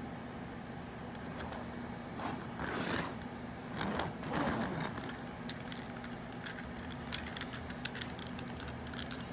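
Plastic Transformers G1 Hot Rod toy car rolling on its smooth rubber tires across a hard surface in a few short pushes. Small plastic clicks and taps follow in the second half as the toy is handled. A steady low hum runs underneath.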